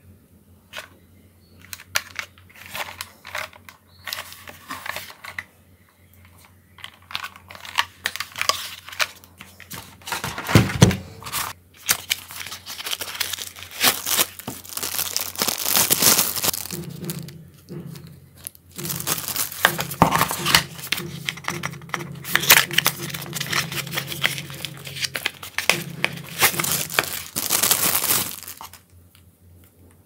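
Clear plastic packaging bags crinkling and rustling as USB cables are handled and unwrapped. Scattered light clicks and knocks come first, and the crinkling is dense and loud through most of the second half, stopping shortly before the end.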